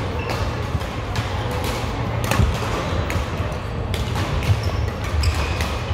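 Badminton rally in a large indoor hall: several sharp racket strikes on the shuttlecock, with short shoe squeaks on the court mat over a steady low hum.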